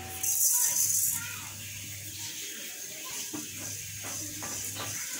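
Shelled peanuts poured from a steel bowl into a metal pan, rattling onto the metal for about a second, then scattered light clicks as they settle.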